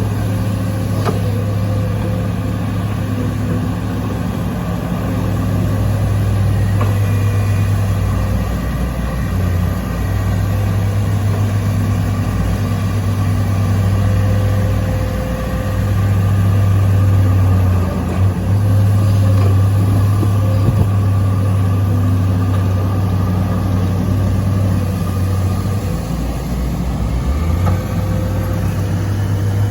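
Diesel engine of a hydraulic excavator running steadily while it levels ground, a low hum with its note dipping briefly a few times.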